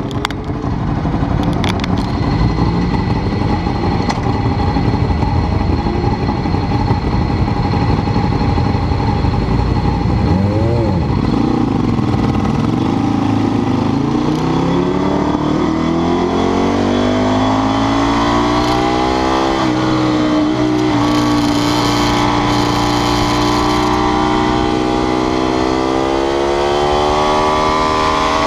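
Ducati 848's L-twin engine running hard: its pitch climbs steadily and falls back sharply a few times, about ten and twenty seconds in and again at the end, over a steady rush of noise.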